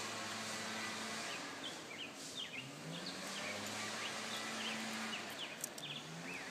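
Outdoor background of a steady low engine hum that slowly rises and falls in pitch, with small birds chirping in many short, quick notes through the middle and a few sharp ticks near the end.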